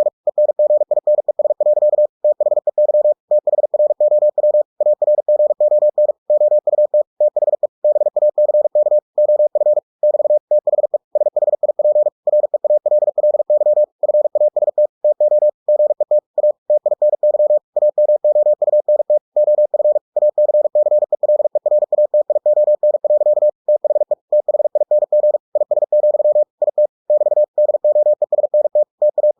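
Computer-generated Morse code at 45 words per minute: a single steady mid-pitched beep keyed on and off in very fast dits and dahs, with short breaks between words.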